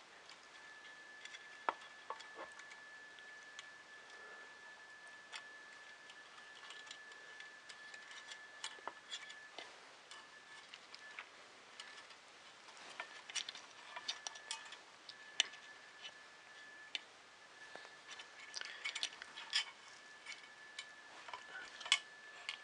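Light, irregular clicks and taps of small printer parts and cable ends being handled during assembly, a few of them in quick clusters, over a faint steady high whine that breaks off now and then.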